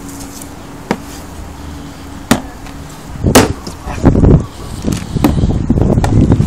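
Knife knocking and scraping against a wooden cutting board while a large fish is filleted: single sharp knocks about a second in and just after two seconds, a louder one about three and a half seconds in, then a busier run of irregular knocks and handling noise.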